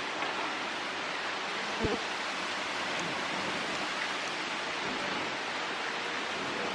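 Fast-flowing river water rushing, a steady even hiss, with a small knock about two seconds in.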